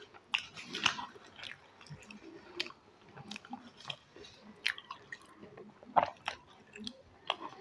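Close-miked eating: chewing of puri with kheer, with irregular sharp clicks and crackles from the mouth and from fried puri being torn apart by hand.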